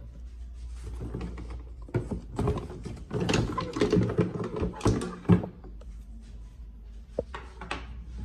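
Plastic pressure-washer parts and packaging being handled: knocks, clatter and rustling, busiest from about two seconds in, with one loud knock about five seconds in, then a few light clicks.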